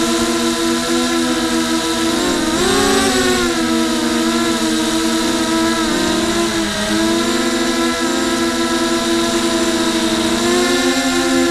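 Quadcopter's electric motors and propellers whining, heard close up from the quad's own onboard camera. The pitch changes with the throttle: it swells about two and a half seconds in, sags around six to seven seconds, and climbs again near the end.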